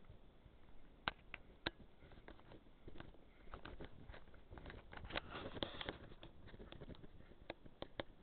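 Faint handling noise from the person filming as they walk along the boat: scattered clicks and light crunching underfoot on gravel, with a denser stretch of crunching about five seconds in.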